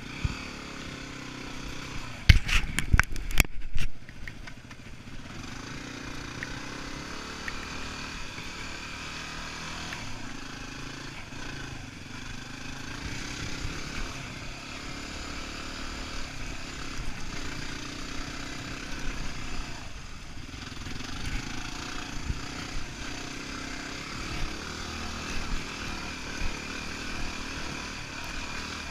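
Yamaha WR250R dual-sport motorcycle's 250cc single-cylinder four-stroke engine running under way on a dirt trail, its note rising and falling with the throttle. A burst of loud knocks about two to four seconds in.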